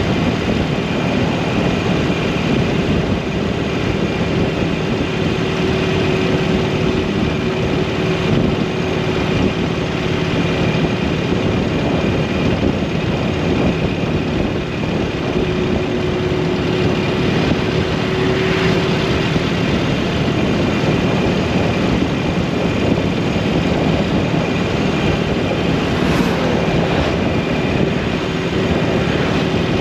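Motorcycle engine running at a steady cruising pitch under a constant rush of riding wind.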